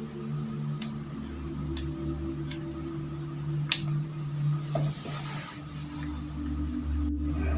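Steady low mechanical hum whose pitch shifts about two-thirds of the way through, with four sharp clicks in the first four seconds.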